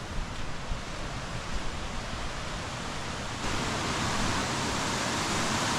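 Steady rushing of a waterfall and its river, getting louder about three and a half seconds in.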